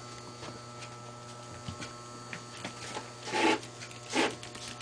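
Quiet rubbing and rustling noise over a steady low hum, with two louder, short rasping scrapes about three and four seconds in.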